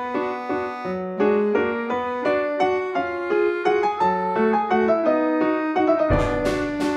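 Background piano music: a steady run of evenly repeated notes. About six seconds in, a fuller, louder section with sharp percussive strikes comes in.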